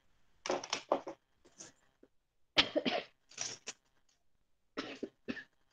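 A person coughing in three short bouts of two or three coughs each, about half a second in, around two and a half seconds in, and near five seconds in.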